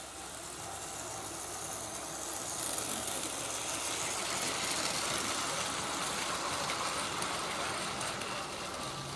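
Battery-powered Plarail toy train, a long multi-car Osaka Loop Line 323 series set, running over plastic elevated track: its motor whirring and wheels rattling, growing louder as it passes close by about four to five seconds in, then fading.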